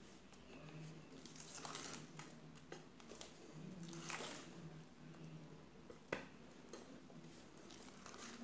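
Wire whisk stirring thick cake batter in a stainless steel bowl: faint, soft squelching strokes, with one sharp click about six seconds in.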